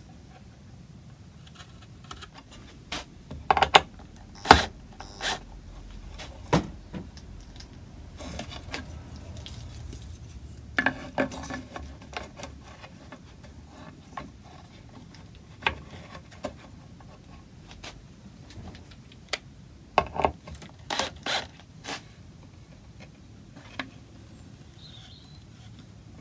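Hand woodcarving in walnut at a wooden bench: soft scraping of a carving chisel on the wood, broken by scattered sharp wooden knocks and taps as the workpiece and its holding blocks are handled on the benchtop. The loudest knocks come about four seconds in and again around twenty seconds in.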